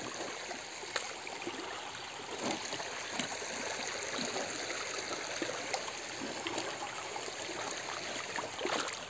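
Shallow stream running over stones: a steady trickling wash of water, with a few faint ticks.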